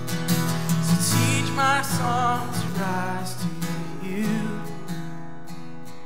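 Acoustic guitar strumming chords, with a man's voice singing a long wavering note without clear words partway through.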